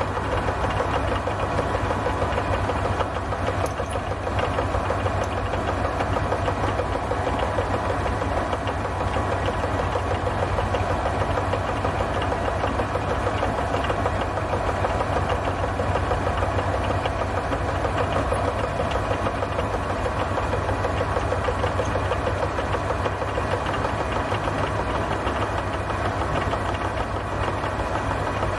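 A milling machine running steadily, its cutter working down to depth to cut a slot, with an even hum and a fine rapid chatter from the cut.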